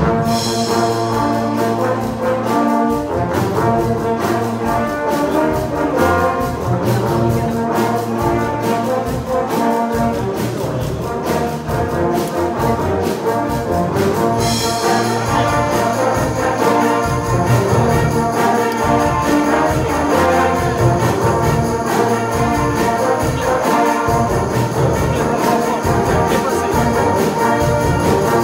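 Brass band playing a tune, many brass instruments sounding together over a low bass line.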